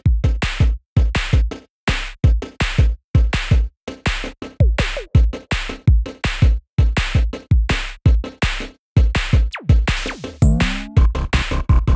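Electronic background music with a fast, choppy drum-machine beat of heavy kick hits broken by short silent gaps. About ten seconds in, a rising sweep leads into a fuller section with held tones under the beat.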